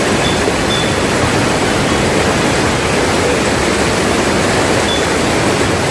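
Swollen river in flood rushing over rapids: a loud, steady noise of fast-flowing, churning floodwater.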